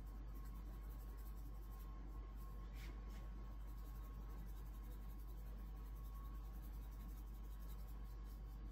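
Faint rattling of orange sugar sprinkles shaken from a small shaker container onto raw cookie dough, over a steady low hum.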